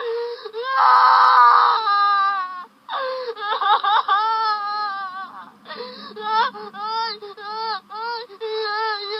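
A woman crying loudly in high-pitched wailing. A strained, shrill cry comes about a second in, followed by wavering wails that break into quick, sobbing bursts in the second half.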